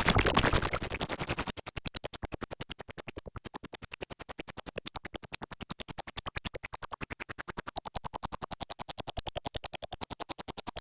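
Behringer MS-1 analog synthesizer: a loud, noisy sound dies away about a second and a half in, leaving a rapid, even train of short repeated notes. Their tone brightens and darkens as the filter sliders are moved.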